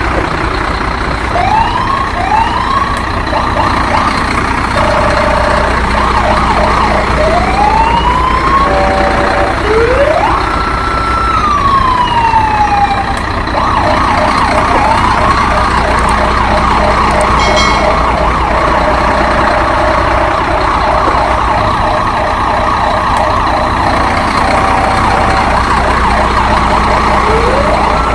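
Electronic siren sounds from toy emergency vehicles: overlapping wails that rise and fall in pitch, with long stretches of a fast, pulsing yelp.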